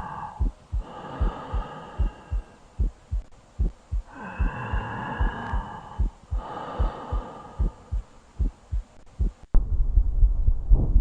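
Tracheal stridor on a stethoscope recording: four long, high-pitched breath sounds, with regular heartbeat thumps underneath. About nine and a half seconds in, the recording cuts abruptly to a louder low rumble.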